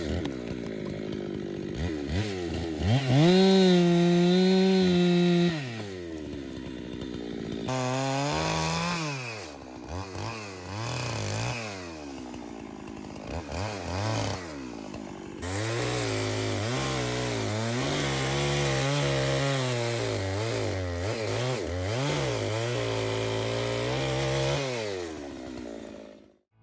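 Chainsaw cutting firewood. It revs up high and holds for a few seconds, drops back, revs up and down several times, then runs fairly steadily at a lower pitch and stops abruptly near the end.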